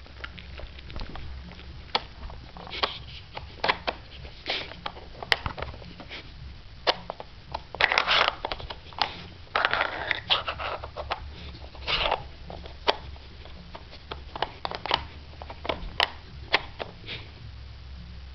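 Irregular clicks, knocks and scrapes of the plastic sliders and bone-shaped blockers of a Nina Ottosson Dog Brick puzzle as a dog noses and paws at it, with short bursts of sniffing.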